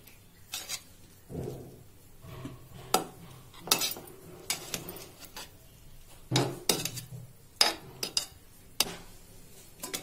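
Metal spoon scraping and clinking against the side of a metal pressure cooker as freshly cooked rice is stirred and fluffed. The clinks and scrapes come at irregular intervals.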